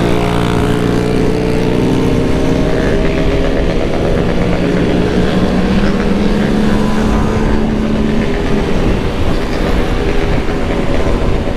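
Triumph Tiger's three-cylinder engine pulling under throttle as the motorcycle accelerates through third gear. Its note climbs slowly and then breaks off about eight seconds in with the shift into fourth. Heavy wind rush on the microphone lies under it.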